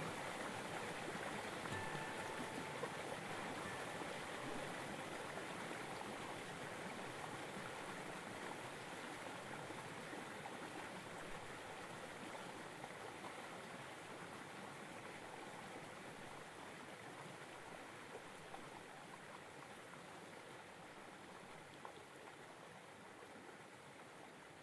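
Steady rushing of running water, like a stream, slowly fading out. A few brief faint high tones sound in the first few seconds.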